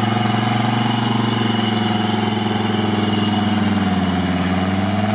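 GAZ-69 off-roader's engine running at a steady, held speed under load while towing a vehicle stuck in mud.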